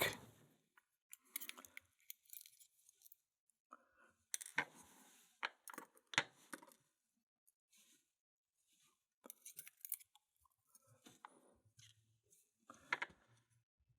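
Faint, scattered clicks and small clinks of tiny metal lock pins being handled and set down during disassembly of a Mul-T-Lock cylinder.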